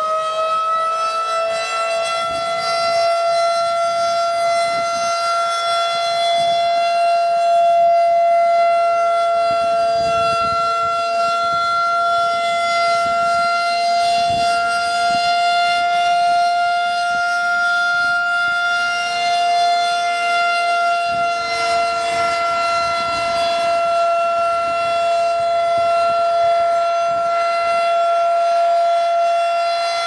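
Federal Signal 2001-130 rotating electromechanical siren sounding its steady alert tone in a siren test: the pitch finishes rising in the first second or two, then holds steady, swelling and fading a little in loudness as the horn turns.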